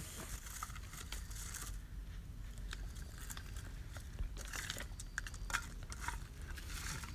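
Faint rustling and crinkling with scattered small clicks and ticks over a low steady rumble.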